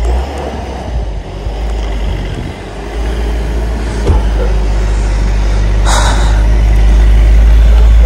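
Force Gurkha 4x4's diesel engine pulling through deep snow, growing steadily louder as it comes closer, with a short hiss about six seconds in.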